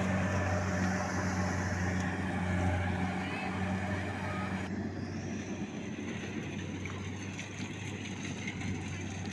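Combine harvester engine running steadily with a low drone. The higher noise over it falls away suddenly about halfway through.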